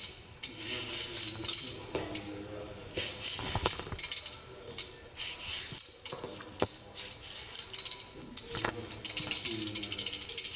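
Stainless steel dual julienne peeler scraping down a raw carrot in quick repeated strokes, each a short rasping hiss, about a second apart, with a few sharp clicks in between.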